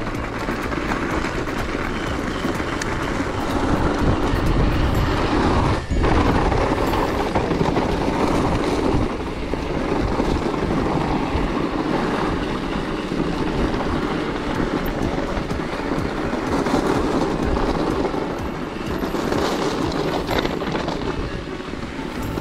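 Mountain bike descending fast: wind rushing over the microphone together with the rumble and rattle of tyres rolling over a rough track, steady throughout with a brief dip about six seconds in.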